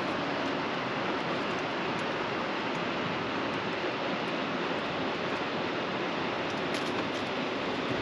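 Steady, even rushing noise with no rise or fall, with a few faint ticks near the end.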